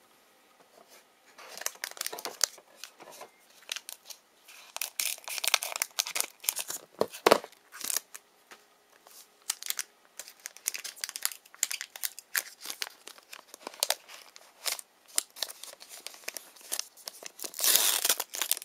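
Plastic trading-card pack wrapper being crinkled and torn open by hand: irregular crackling and rustling, thickest and loudest near the end.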